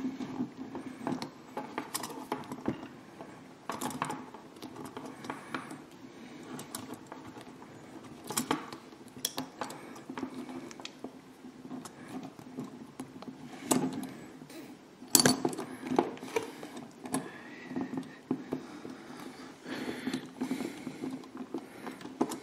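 Small plastic and metal parts of a scale-model car's rear suspension clicking and rattling in irregular taps as they are handled and fitted together, with a few louder clacks past the middle.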